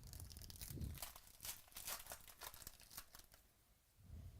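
Wrapper of a trading-card pack being torn open and crinkled: a quick run of rustles and crackles that fades out after about three and a half seconds.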